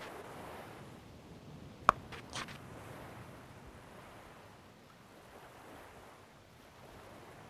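Soft surf ambience of waves washing on a beach. A single sharp click comes about two seconds in, followed by a few quick light taps.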